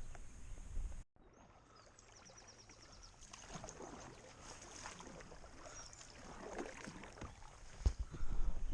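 Kayak paddle strokes dipping and splashing in the water, a few soft washes of sound in a row. A short run of high chirps comes before the strokes, and low rumbling thumps come near the end.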